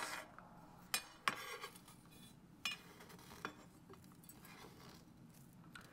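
Flat side of a chef's knife crushing toasted fennel seeds on a cutting board: a few light, sharp clicks of the blade against the board over faint scraping.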